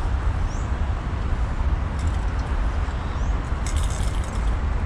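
Steady outdoor city background noise with a heavy low rumble. Two faint, short, high rising chirps come about half a second and three seconds in, and a few light clicks come about three and a half seconds in.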